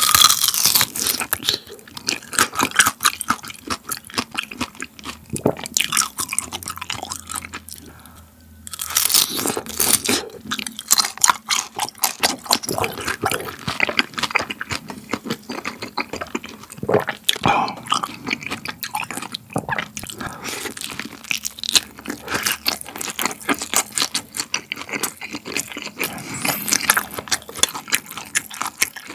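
Close-miked biting and chewing of grilled whole beef large intestine (daechang): a crisp bite at the start, then long stretches of dense, wet crackling chews, with a short lull about eight seconds in.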